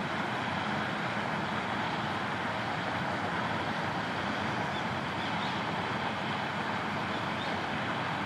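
Steady outdoor background noise, a continuous even rush with no distinct events, and a few faint high chirps now and then.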